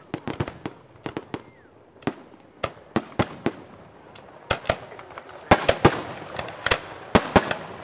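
Aerial fireworks shells bursting in a rapid, irregular string of sharp bangs, thickening into a denser volley about five and a half seconds in.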